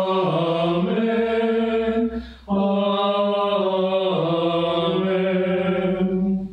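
Sung Great Amen closing the Eucharistic Prayer: a slow chanted 'Amen' held in two long phrases, with a brief breath about two seconds in.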